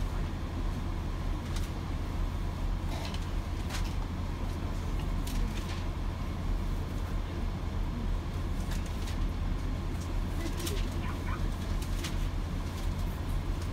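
Steady low drone of a Chiltern Railways diesel multiple unit, heard from inside the carriage, with a few short clicks scattered through it.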